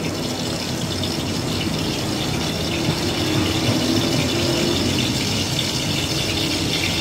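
Restaurant gas wok burner running under a wok of oil, a steady, even rushing hiss.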